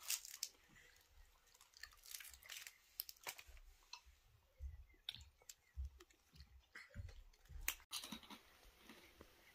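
Close-up chewing and crunching of crisp fried bread: irregular small crunches and clicks from mouths eating.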